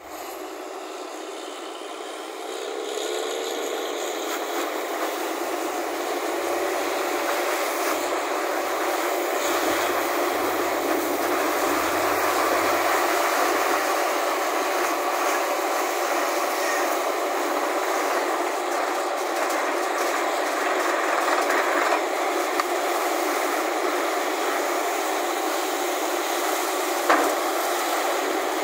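Truck-mounted borewell drilling rig at work: a loud, steady rushing, grinding noise as air and rock cuttings blow out of the borehole, building over the first few seconds, with one sharp clank near the end.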